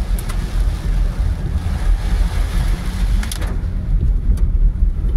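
Inside a car driving in heavy rain: a steady low rumble of the moving car with rain hissing on the windshield. About three and a half seconds in, the rain hiss drops away as the car passes under a bridge, and a few sharp clicks stand out.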